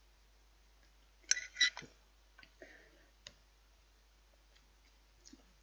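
A few sharp clinks of a metal knife and fork against a plate about a second in, then faint scattered clicks.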